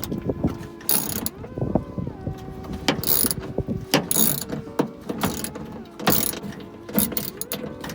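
Socket ratchet wrench clicking as it is worked back and forth to unscrew a seat-belt anchor bolt, in a series of strokes about a second apart.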